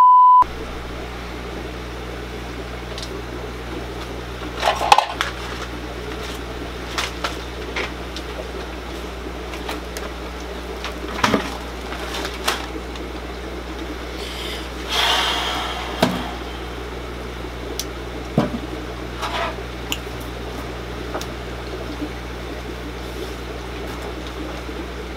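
A short electronic beep tone at the very start. Then the steady hum of a fish room's air pumps and aquarium equipment, with scattered small clicks and knocks and a brief rustle a little past halfway.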